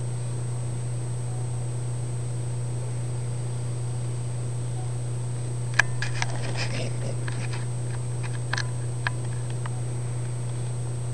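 Steady low electrical hum with a faint high whine: the recording's own background noise. About six seconds in, a short flurry of sharp clicks and brief chirps lasts some three seconds, opening with its loudest click.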